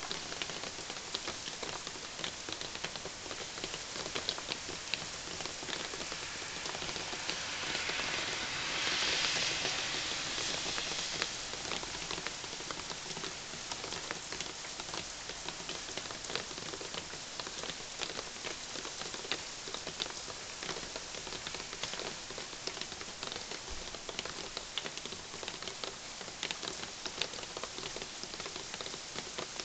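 Steady rain falling: an even hiss with many sharp drops tapping close by. The hiss swells louder for a few seconds about nine seconds in.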